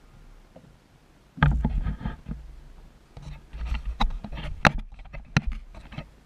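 Knocks, thumps and scraping on the hull of a small skiff, carried into the boat-mounted camera. The noise starts suddenly about a second and a half in, with a few sharp knocks toward the end.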